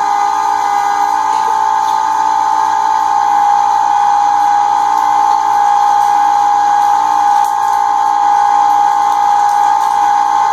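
Cabela's Carnivore half-horsepower electric meat grinder running steadily while grinding pork shoulder through the coarse die, with a constant high-pitched motor whine.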